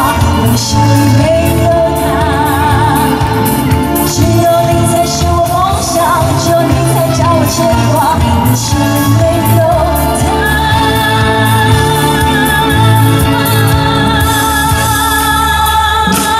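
A woman singing a song into a microphone over a live band with electric guitar and drum kit. She sings a line with wavering vibrato notes, then holds one long note from about ten seconds in.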